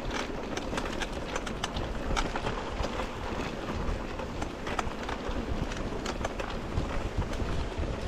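Mountain bike ridden over a rough grassy track, heard from a handlebar-mounted camera. Steady wind noise on the microphone, with irregular clicks and rattles from the bike jolting over bumps.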